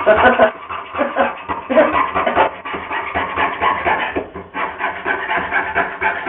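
Small hand saw rasping back and forth through a wooden couch leg in quick, uneven strokes, with a brief pause about four seconds in; the saw sounds a bit dull.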